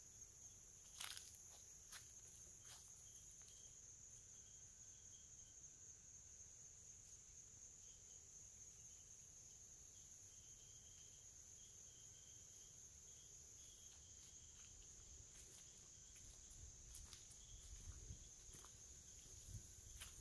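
Faint outdoor ambience: a steady high-pitched insect drone, with a few soft clicks near the start.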